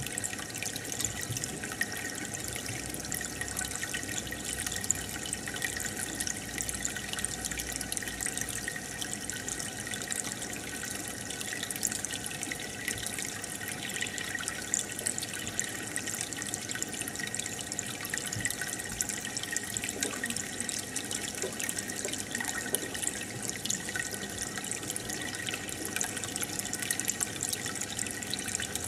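Aquarium water bubbling and trickling steadily, with a dense crackle of small bubbles breaking at the surface, from the tank's air bubbler and filter.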